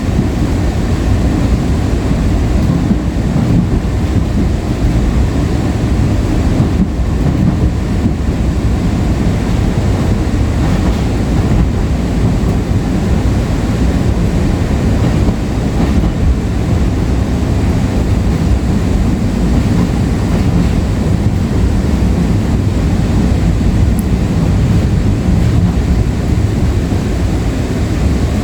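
Breda LRV3 light rail car in motion, heard from on board: a steady low rumble of the running car on the track.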